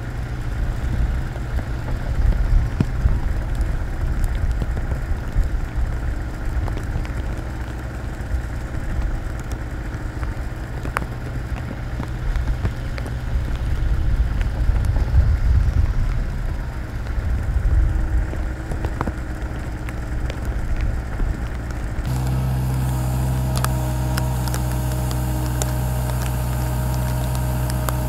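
Mini excavator's diesel engine running as it works, with a few sharp knocks. About three quarters of the way in the engine sound turns steady, an even hum.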